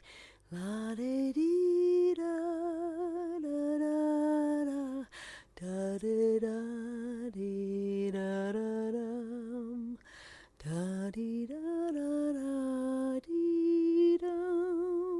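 A woman humming a wordless, lilting tune solo, in short phrases of held notes with a light vibrato, broken by brief pauses about five and ten seconds in.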